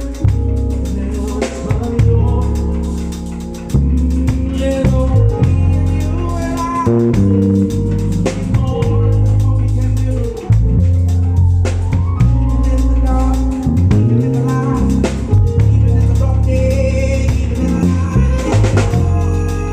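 Live band playing a groove, led by a drum kit with regular hits over a deep, sustained bass line and held chords.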